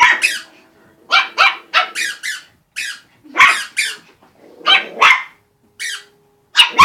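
Small puppies yapping: a run of about a dozen short, high-pitched barks, often two in quick succession.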